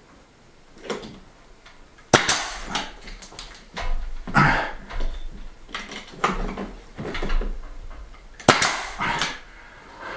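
Pneumatic nail gun firing twice, about two seconds in and again near the end, driving nails through a wooden ceiling board, with softer knocks and scrapes of the board being pushed into place between the shots.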